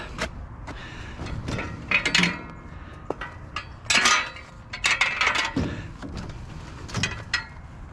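Baby gates and other curbside scrap being picked up and loaded, clattering and clanking in an irregular series of knocks and rattles.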